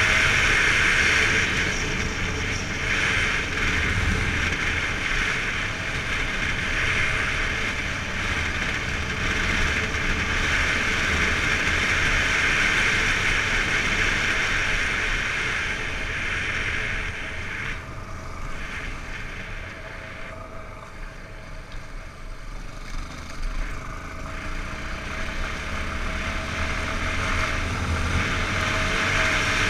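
Yamaha XTZ 250 Lander's single-cylinder four-stroke engine running as the bike rides along, mixed with wind rushing over the camera's microphone. The sound drops for a few seconds past the middle, then builds back up near the end.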